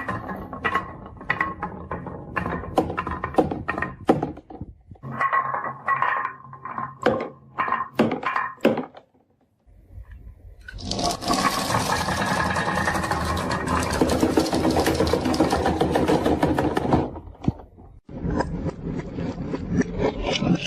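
Marbles rolling and clattering down a wooden marble run, with many irregular clicks and knocks. After a brief pause, a continuous dense clatter runs for about six seconds, then scattered clicks return near the end.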